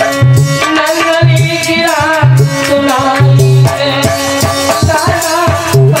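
A man singing a Hindi devotional song (bhajan) in a wavering, ornamented line over a harmonium's held chords. Drum beats and light percussion keep a steady rhythm.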